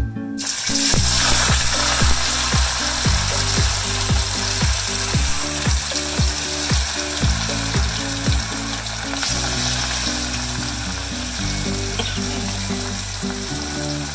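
Chilli-marinated sardines deep-frying in hot oil in a wok: a loud, steady sizzle that starts suddenly about half a second in as the fish goes into the oil. Background music with a steady bass beat plays underneath.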